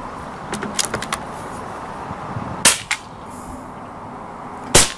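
SMK SX78 CO2 air rifle being readied and fired: a few light clicks of the bolt and action early on, a sharp click a little past halfway, then a single sharp shot near the end, the loudest sound.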